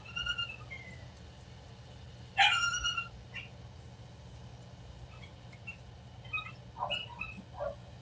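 Dog whining in short high-pitched calls: a falling whine at the start, a louder whine about two and a half seconds in, then several brief whimpers near the end.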